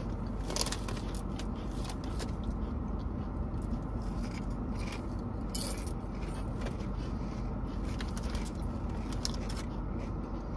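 Wavy potato chips being chewed and the chip bag being handled: scattered short crunches and crinkles over a steady low hum of a car's cabin.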